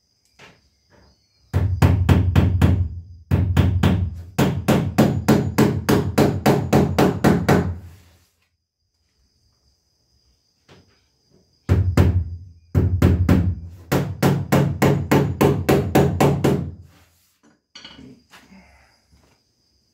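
Hammer blows at the stern of an upturned boat hull built from blue plastic drums on a wooden frame, fastening the stern in place. There are two runs of rapid strikes, about three to four a second and each lasting roughly six seconds, separated by a pause of a few seconds, with a few light taps near the end.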